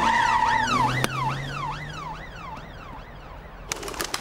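Cartoon police car siren wailing in quick rising-and-falling sweeps, about two a second, growing fainter as it goes. A few sharp clicks near the end.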